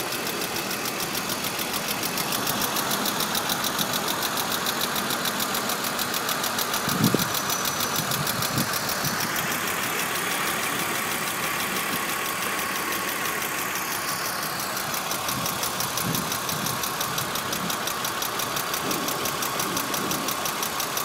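BMW E46 325i's 2.5-litre inline-six (M54) idling, with a fast, steady tick from the engine that the owner suspects is a lifter. A short thump about seven seconds in.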